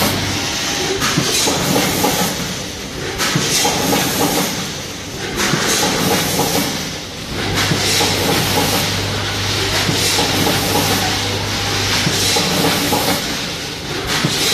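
Automatic weighing-and-packing line running: a rotary premade-pouch packing machine fed by a 10-head weigher, with continuous pneumatic hissing and mechanical clatter over a low motor hum, rising and falling every few seconds as the machine cycles through its filling stations.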